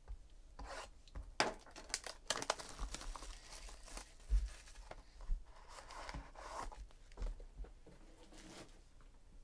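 Clear plastic wrapping being torn off a trading-card pack and crinkled in the hands: a run of sharp crackles, thickest in the first few seconds, thinning out and stopping near the end.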